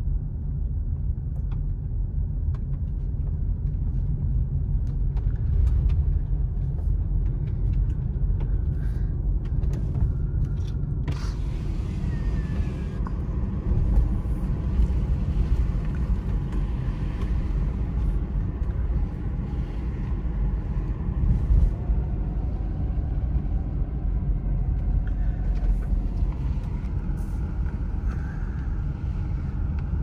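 A car driving, heard from inside the cabin: a steady low road and engine rumble, with a faint hiss joining in partway through.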